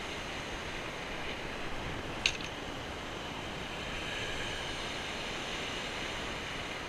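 Steady rush of wind and surf breaking on a shingle beach, with one sharp click a little over two seconds in.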